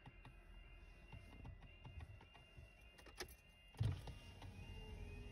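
A level crossing's warning alarm, heard faintly from inside a closed car as steady high tones while the barrier lowers. There is a brief thump about four seconds in.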